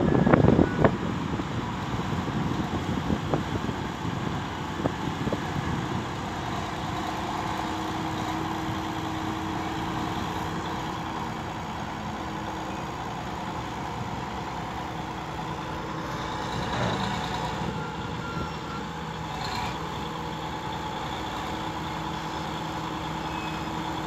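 Diesel engines of a BEML BD80 crawler bulldozer working and a tipper garbage truck dumping, running steadily. There are a few loud knocks in the first second, and a steady tone comes in about seven seconds in.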